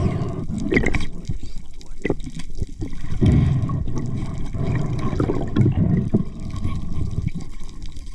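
Underwater sound picked up through a camera housing: uneven surges of low water rush as the speargun and camera move through the water, with scattered sharp clicks.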